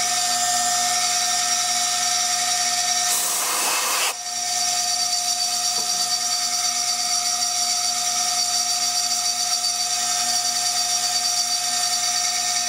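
CNC milling machine spindle whining steadily, high-pitched, as its sharp cutter engraves a glass beer bottle. About three seconds in, a loud hiss lasts about a second.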